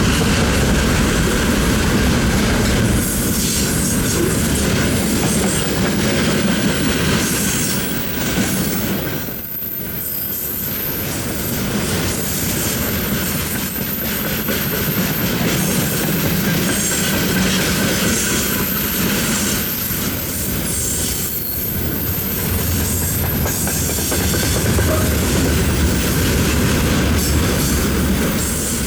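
Loaded freight train wagons rolling past at speed, steel wheels rumbling and clattering over the rails with a thin high wheel squeal. The noise is steady, with a short dip about nine seconds in.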